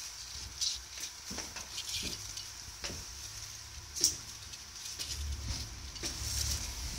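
Crackly rustling of stiff air plant (Tillandsia) leaves being handled by fingers, with a few sharper clicks, the strongest about four seconds in. A low rumble comes in near the end.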